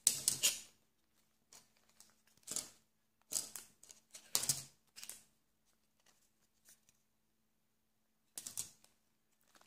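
Thick card die-cuts handled and laid down on a tabletop: about six short bursts of light tapping and paper rustling, with quiet in between.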